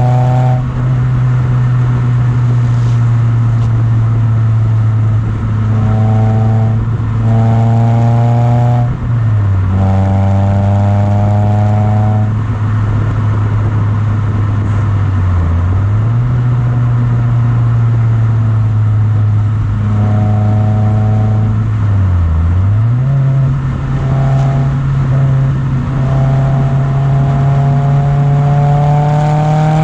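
Toyota Yaris T-Sport's four-cylinder engine through a TRD header and Fujitsubo rear exhaust box, running at steady mid revs. The note dips briefly three times and then climbs steadily near the end as the revs rise.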